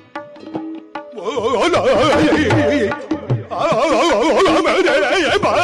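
Indian-style music with a tabla-like drum beat. From about a second in, a loud, wavering melody with heavy vibrato comes in over the drums.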